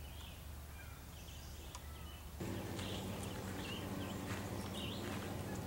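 Small songbirds chirping in short repeated phrases. About two and a half seconds in, a steady low hum and more background noise come in.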